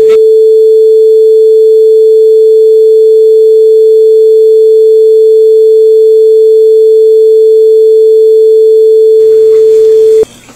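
A censor bleep: one loud, steady pure tone held for about ten seconds, cutting off suddenly near the end.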